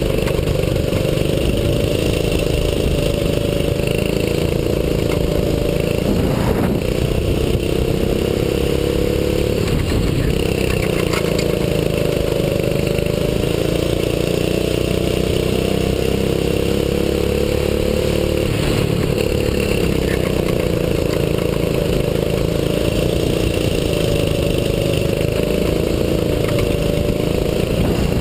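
A 6.5 hp single-cylinder four-stroke rental kart engine running hard, heard from the driver's seat. Its note climbs slowly along each straight and drops sharply each time the driver lifts for a corner, about three times.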